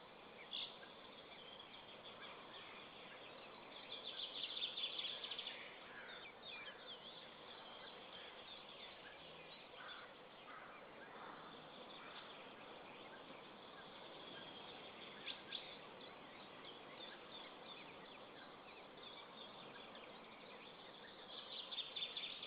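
Small birds chirping and singing over a faint steady hiss, with louder bursts of song about four seconds in and again near the end.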